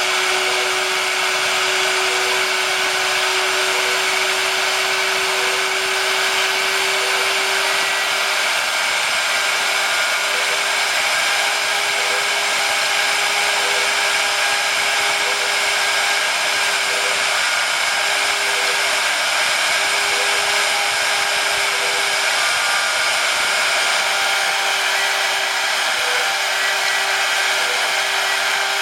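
Spindle motor of a DIY CNC PCB drilling machine running steadily, a continuous whirring noise with a steady whine.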